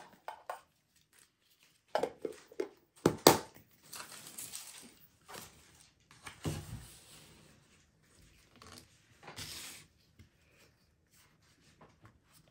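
A Pokémon booster pack's foil wrapper being torn open and crinkled, in irregular bursts with the loudest about three seconds in, then the cards handled.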